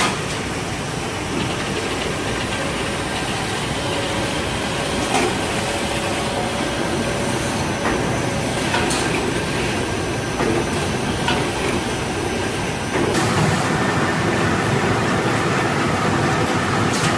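Fully automatic band saw paper-log cutting machine for hand towel paper running at high speed: a steady mechanical clatter with occasional sharp knocks. It gets louder about three-quarters of the way through.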